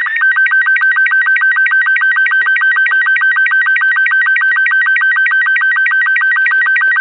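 Slow-scan television (SSTV) image signal: a loud, steady chirping of audio tones broken by a short sync beep several times a second, one per scan line, as a transmitted photo is received and decoded line by line.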